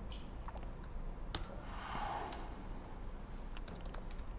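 Typing on a MacBook laptop keyboard: scattered key clicks, one sharper click about a second and a half in, with a brief soft sound about two seconds in, over a low steady room hum.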